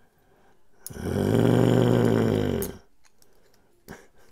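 A man's long, low, wordless vocal sound, held on one pitch for nearly two seconds starting about a second in. A light click of small knife parts being handled comes just before it, and another near the end.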